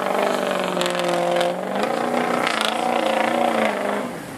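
Lifted mud truck's engine revving hard and held at high revs as it powers through a mud pit, the pitch stepping up a little about two seconds in and falling away near the end.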